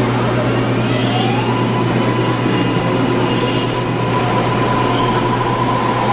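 MARTA rapid-transit train pulling out of an underground station platform, its cars rolling past with a steady noise. A whine rises in pitch about a second in as the train accelerates, then holds at one steady pitch.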